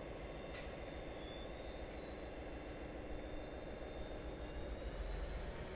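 Steady low rumble of a train at the station, with faint steady high-pitched tones above it and a few faint ticks.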